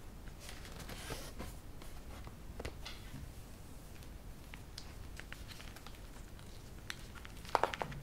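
Soft rustling and light clicks of a laptop power adapter and its cables being handled close to the microphone, with a few sharper clicks near the end.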